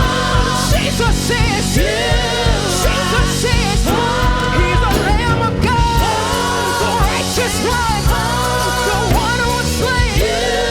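A worship song with singing over a band, a steady drum beat and bass.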